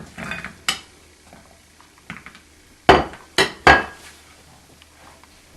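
Kitchenware clattering as sliced potatoes are put into a glass pan: scattered light clinks, then three loud, sharp knocks in quick succession about three seconds in.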